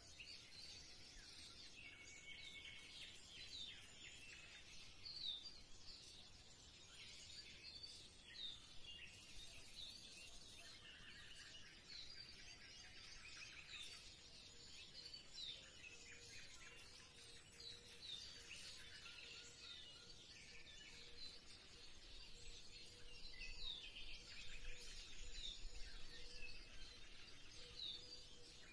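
Faint twittering of small birds: many short chirps overlapping, with no pause. A faint steady hum joins about halfway through, and a low rumble comes near the end.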